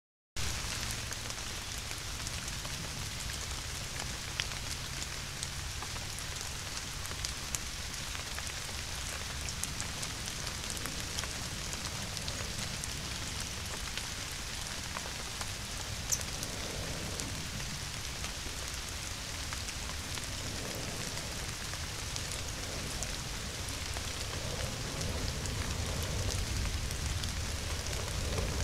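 Steady rain falling on forest leaves and ground, picked up by a trail camera's microphone, with a low rumble underneath that swells slightly near the end.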